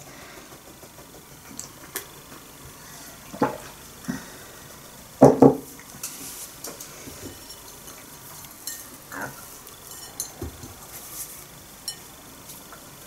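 A few light knocks and clinks of a cup and plates being handled on a table, scattered over several seconds, the loudest about five seconds in.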